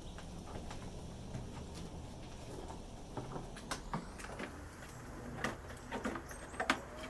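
Hands fitting a washing machine's rubber door seal onto the drum during reassembly: scattered light clicks, taps and rubbing, with several sharper clicks in the second half. A steady low hum runs underneath.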